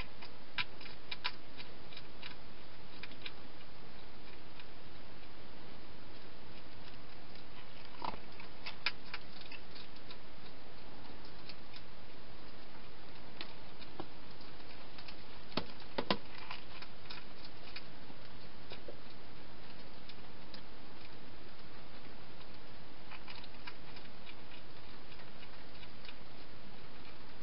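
Wild hedgehog eating: irregular crunching and clicking in short clusters, heard a few times, over the steady hiss of the camera's microphone.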